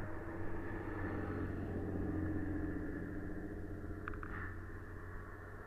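A motor vehicle engine running steadily with a low hum, swelling about two seconds in and then easing off. A brief high squeak sounds about four seconds in.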